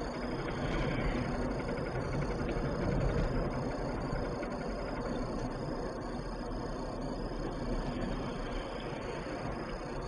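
A Toyota car with a 1NZ four-cylinder engine driving under steady load, with a knocking and rattling from somewhere in the car that comes in around 1400–1700 rpm at 40–70 km/h; its cause is unknown.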